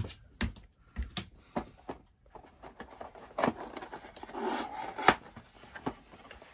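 Cardboard box being handled: a few light knocks, then scraping and rustling as its top flap is pulled open, ending in a sharp snap about five seconds in.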